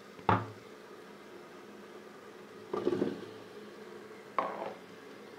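Metal cooking pot and its lid clanking: three sharp knocks, each ringing briefly, the middle one a short clatter.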